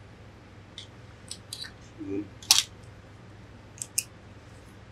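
Tools being handled on a tailor's cutting table: a handful of short, sharp clicks and taps at irregular intervals, the loudest about two and a half seconds in, over a faint steady low hum.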